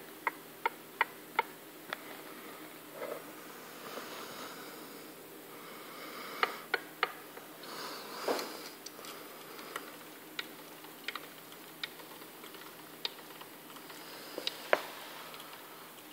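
Used Nissan R200 open differential turned slowly by hand on the bench: its ring and pinion gear teeth give scattered sharp clicks as they meet, some in quick runs of three or four, others a second or more apart. The owner asks whether this clicking is normal.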